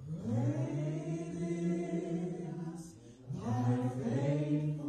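A woman singing slow, long-held notes into a handheld microphone, in two drawn-out phrases with a short breath about three seconds in.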